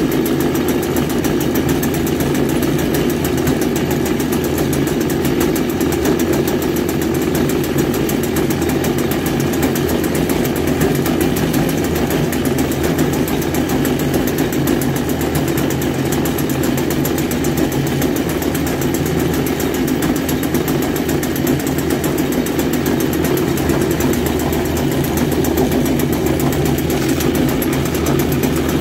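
Stihl string-trimmer two-stroke engine running steadily at an even speed.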